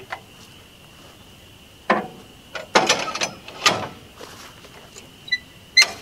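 A few irregular knocks and clatters of a log being shifted and turned by hand on a portable sawmill's steel bed against the log stop, with a cluster of them about three seconds in.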